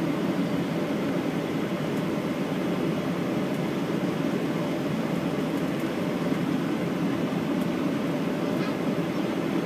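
Steady cabin noise inside a Boeing 737-900ER on the ground before takeoff: an even, low rumble from its CFM56-7B engines at idle and the cabin air flow.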